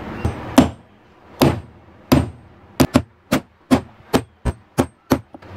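Hammer striking a steel punch held on the end of a DC cooler motor's armature shaft: about ten sharp metallic taps, spaced out at first and coming faster in the second half. The punch marks are meant to make the shaft jam in the seized bearing so that the bearing can be knocked out.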